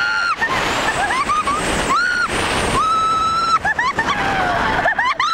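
Riders screaming on a steel roller coaster over heavy wind rush on the microphone: several long, held screams, then a run of short yelps near the end.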